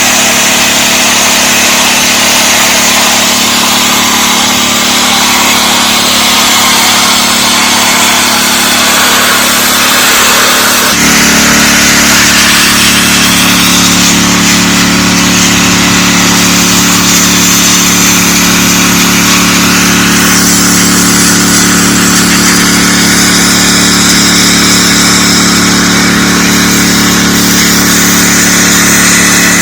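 DeWalt 3600 psi gas pressure washer running steadily, its engine note under the hiss of the high-pressure spray. About eleven seconds in the engine tone becomes stronger and deeper and holds there.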